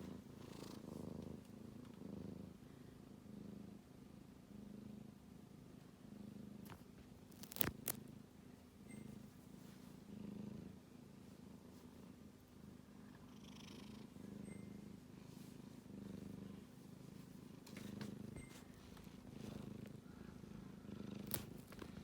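Sleeping kitten snoring softly, a low rasp that swells with each breath about once a second. Two sharp clicks cut in, one about a third of the way through and one near the end.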